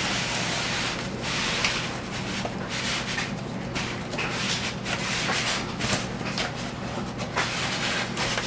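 Cardboard box and packing material rubbing and rustling as a boxed ceiling fan is eased out of its carton, with scattered light clicks and knocks.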